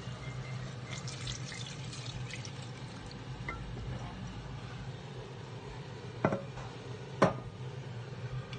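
Pineapple juice poured from a glass bowl into a pot of cooking chicken, a liquid pouring sound over a steady low hum. Two sharp knocks come about six and seven seconds in.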